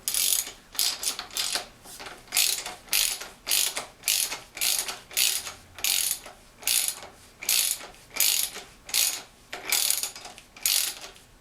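Ratchet wrench with a 24 mm socket clicking in short bursts, about two a second, as it screws the fork cap back down onto a motorcycle fork.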